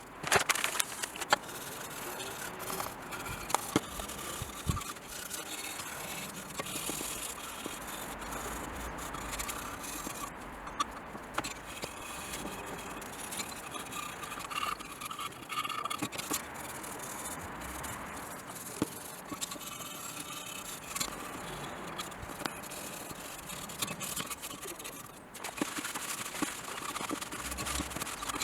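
Hand work on a car's instrument cluster at a bench: steady scraping and rubbing with many small clicks and knocks as the parts are handled.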